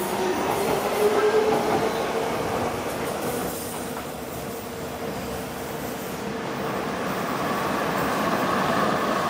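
Docklands Light Railway trains running on curved track. A passing train's steady whine fades away, then the running sound builds again as trains approach, with a higher whine coming in near the end.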